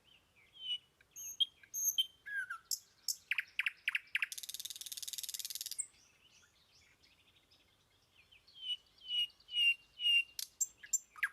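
Small birds chirping and calling: scattered short chirps and high whistled notes, then a dense buzzy rattle for about a second and a half about four seconds in, and near the end a run of about five short repeated falling notes.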